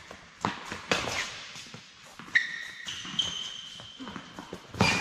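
Tennis ball struck by rackets and bouncing on an indoor hard court during a rally: sharp pops about half a second and a second in, and a loud hit near the end. High squeaks from shoes on the court come in between.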